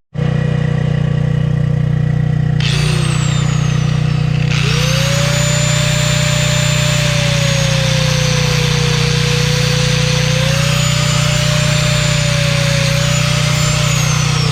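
A portable generator runs with a steady engine hum while an electric grinder powered from it whines. The grinder is switched on briefly about three seconds in and winds down. It starts again about a second later and runs, its pitch sagging and recovering as it grinds off a crimped PEX fitting, then winds down near the end.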